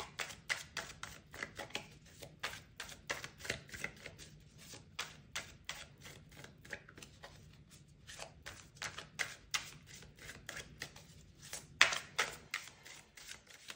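A tarot deck being shuffled by hand: a steady run of quick card slaps and clicks, about three or four a second, with one louder slap about twelve seconds in.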